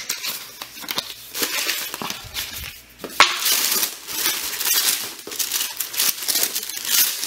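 Packing paper in a shoe box rustling and crinkling as it is handled and pulled out, with a sharper crackle about three seconds in.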